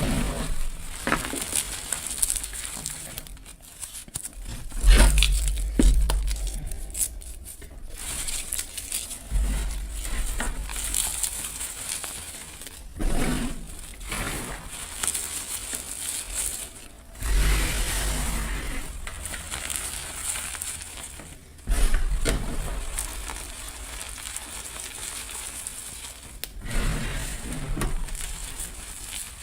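Gym chalk block and dried flower petals being crushed close to the microphone, giving crumbly crunches and dry crackles. A fresh crush begins every four or five seconds, each with a dull thump.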